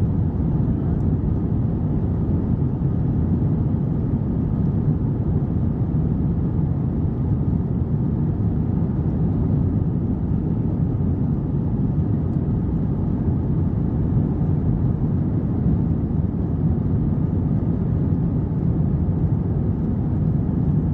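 Airbus A321 cabin noise during the climb after takeoff: a steady, low-pitched sound of the engines and the airflow, heard from a window seat over the wing.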